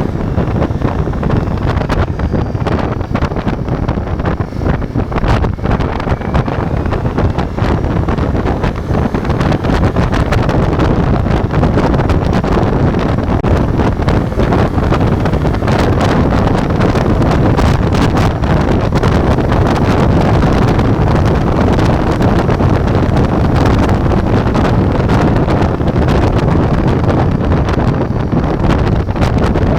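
Ducati Multistrada V4's V4 engine running as the bike rides along, under heavy wind rush on the camera microphone. The sound is steady and gets a little louder about ten seconds in.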